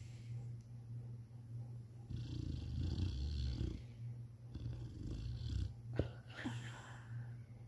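Boxer dog snoring in its sleep: two long, rattling breaths over a steady low hum, then a sharp click about six seconds in.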